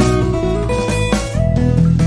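Background music led by guitar, with plucked notes and strummed chords.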